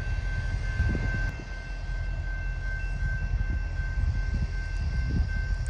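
Amtrak passenger train idling at a station stop: a steady low rumble, with a thin steady high tone over it.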